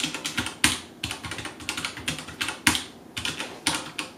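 Typing on a Vortex Tab75 mechanical keyboard with red linear switches, its keycaps fitted with rubber silencing O-rings: a quick, steady clatter of keystrokes with a few louder strokes among them.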